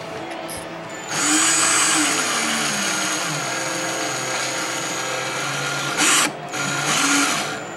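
Power drill boring into a wine bottle's cork with a large bit. It starts about a second in and runs about five seconds, its motor pitch wavering under load, then gives a short burst and runs briefly again near the end.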